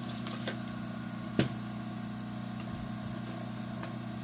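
Steady electrical hum from soldering and rework bench equipment, with one sharp tap about a second and a half in.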